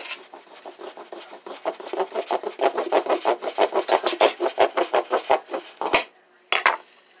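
A knife sawing back and forth at the tip of a plastic squeeze bottle, in quick rasping strokes several a second, cutting the nozzle wider so the thick pancake batter will come out. Two sharp clicks follow near the end.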